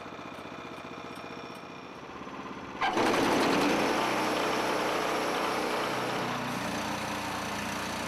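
A portable band sawmill's Honda GX gasoline engine runs steadily. About three seconds in the sound jumps suddenly to a much louder, noisier run, as the mill goes to throttle with its band blade turning.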